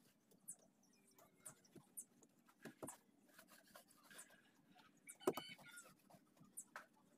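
Faint, irregular rubbing and squeaks of a cloth pad worked over the fiberglass surface of a boat mold, applying release wax. There is a sharper squeak a little past five seconds in.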